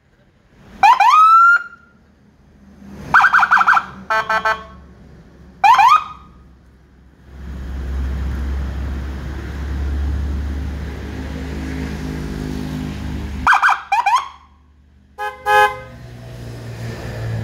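Whelen electronic siren sounding through an M315+ siren speaker in short bursts: quick rising whoop chirps and flat, buzzing horn blasts. In the middle the vehicle's engine runs steadily for several seconds between the bursts.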